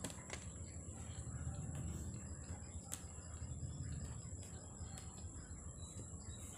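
Crickets chirring steadily at a high pitch, over a low rumble that swells twice, with a few faint clicks.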